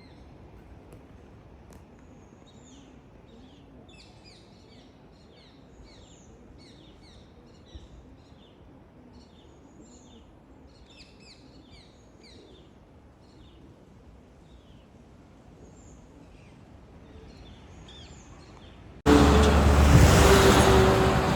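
Many small birds chirping and twittering over a faint low background rumble. Near the end a loud rushing noise cuts in suddenly and drowns them out.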